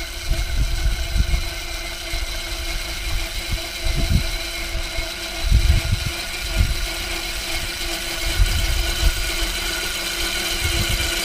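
Homemade electric Krot cultivator run through a frequency inverter, its electric motor giving a steady whine with several tones while its rotary tiller tines churn through clods of soil with uneven low thuds.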